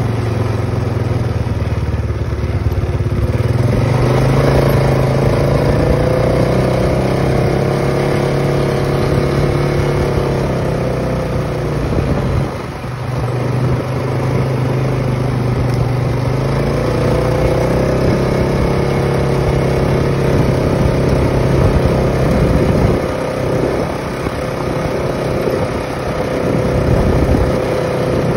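Polaris ATV engine running while riding, its pitch climbing as it speeds up from about four seconds in, dropping sharply about halfway through, then climbing again and dipping once more near the end.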